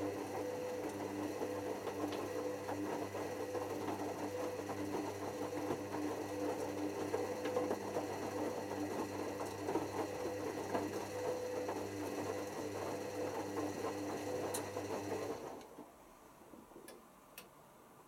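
Hoover WDYNS654D washer-dryer's drum turning during the first rinse of a cotton cycle: a steady motor hum over the churn of the wet laundry in the drum. The motor stops suddenly about fifteen seconds in, leaving a low hum and a couple of faint clicks.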